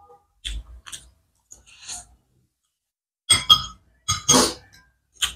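Close-miked eating sounds from a mukbang of spicy instant noodles: wet mouth noises as she chews and slurps, with small clinks and scrapes of a metal fork and spoon on a ceramic plate. Several short sounds, the loudest ones in the second half.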